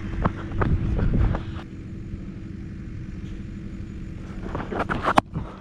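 Wind rumbling on a helmet-mounted action camera's microphone, with footsteps on the dirt pitch. The rumble eases after about a second and a half, leaving a faint steady hum, and a few clicks and knocks follow, the sharpest near the end.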